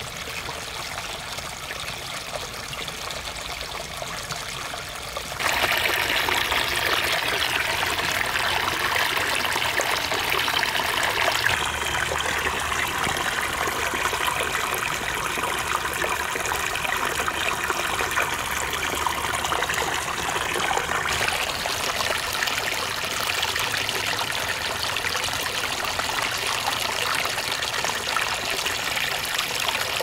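Spring water trickling and splashing over rock into a shallow pool, a steady rush of running water that gets louder about five seconds in and shifts in tone twice more.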